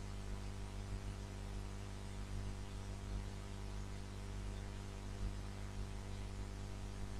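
Steady low electrical hum with a faint even hiss underneath, the mains hum and noise floor of a recording setup.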